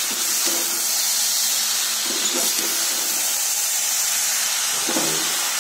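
Pork and daikon leaves sizzling steadily in hot oil in a wok as they are stirred with a spatula.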